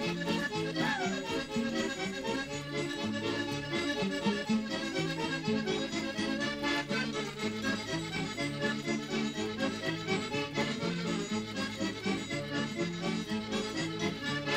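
Portuguese folk dance music led by accordion: a brisk tune of quick, stepped notes over a steady fast beat.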